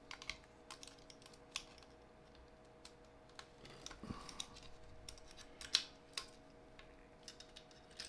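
Faint, scattered small clicks and taps of a metal nut tool, nuts and screws against the robot car's chassis plate as the parts are handled and nuts fitted by hand, with one louder click a little before six seconds in.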